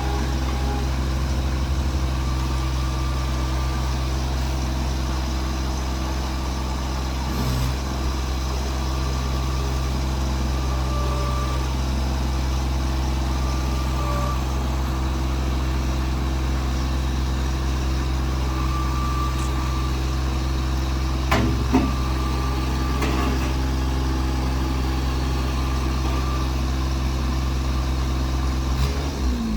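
Bobcat S70 skid steer loader's small diesel engine running steadily at idle, with a couple of brief knocks about a third of the way in and again later.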